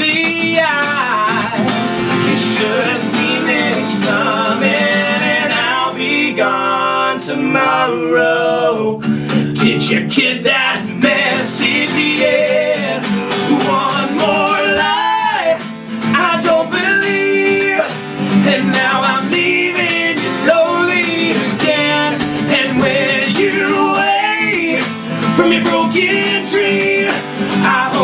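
Acoustic guitar strummed and picked while a man sings a rock song live, another male voice singing along at times.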